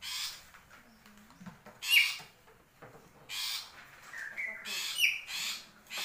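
Caged black-capped lory calling: a string of about five harsh, rasping screeches about a second apart, some with a short whistled note, the loudest about two seconds in.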